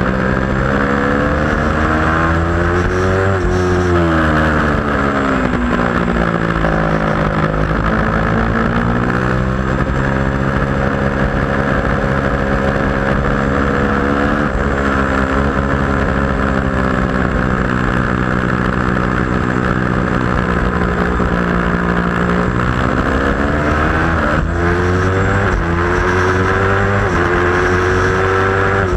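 2010 Aprilia RSV4 Factory's V4 engine at racing revs, heard from a camera on the bike with wind rush. The revs rise, fall through downshifts, hold fairly steady through a long stretch, then climb hard through several upshifts near the end.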